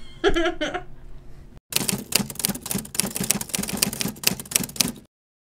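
A brief voice in the first second. Then, after an abrupt cut, about three and a half seconds of rapid, even mechanical clicking, about five strokes a second with finer clicks between them, which stops dead.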